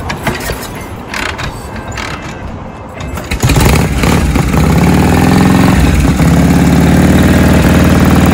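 Harley-Davidson panhead V-twin being kick-started: a few knocks of the kick-starter, then about three and a half seconds in the engine fires and runs loud and lumpy, its revs rising and falling as it settles.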